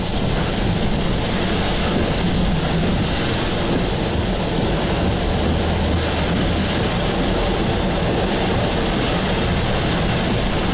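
Steady, loud roar of heavy wind-driven rain and storm wind beating on a moving car, heard from inside the cabin, with the car's road noise underneath.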